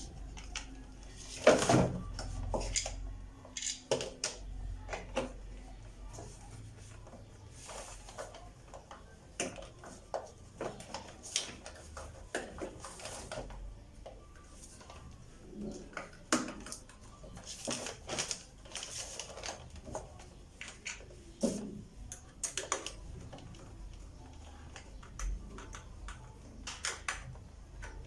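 Irregular clicks, taps and light rattles of hands working on a disassembled hair dryer's plastic parts and small tools.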